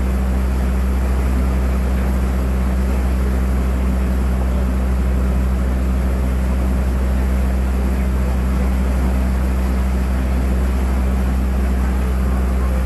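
A resort boat's inboard engine running steadily on board, a constant low hum under a wash of water and hull noise.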